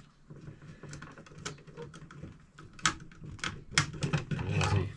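Irregular clicks and taps of hands and tools working plastic switchboard fittings and wiring, sparse at first and busier and louder in the second half, with a scraping rub near the end.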